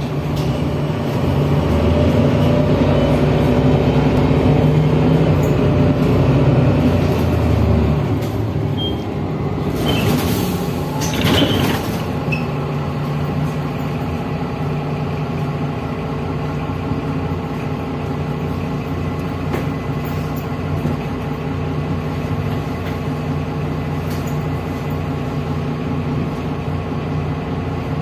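Mercedes-Benz Citaro city bus heard from inside the passenger cabin: the diesel engine pulls harder for the first several seconds, then settles to a steadier, lower running note. A brief hiss of air comes about ten seconds in.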